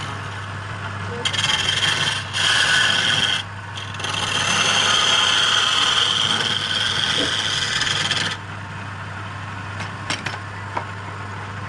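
Wood lathe running with a steady low hum while a tool rasps against the spinning wood in three passes: two short ones in the first few seconds, then a long one of about four seconds.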